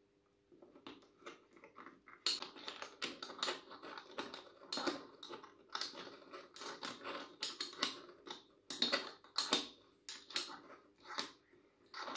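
Rapid, irregular clicking and rattling of a metal scissor-arm microphone boom stand being handled and fitted to its clamp, starting about half a second in.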